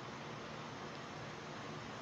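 Steady faint hiss of room tone and recording noise, with no distinct events.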